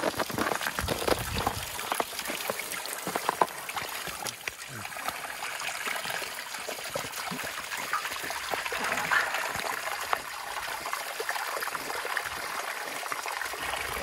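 Water trickling from a hose in a thin, steady stream into a black rubber stock tub of water, with a few short knocks and splashes, mostly in the first couple of seconds.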